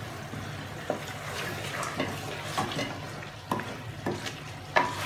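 Wooden spatula stirring mutton in an aluminium karahi, scraping and knocking against the metal pan several times over a steady sizzle of the meat frying in its masala, the dish cooked down nearly dry.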